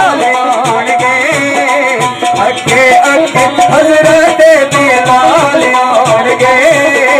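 Naat sung live by a male voice into a microphone, with a keyed benju playing the melody and a hand drum keeping a steady beat.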